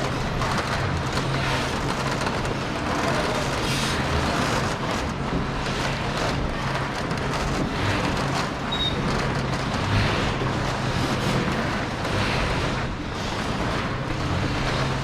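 Steady low engine hum under a constant wash of wind and water noise.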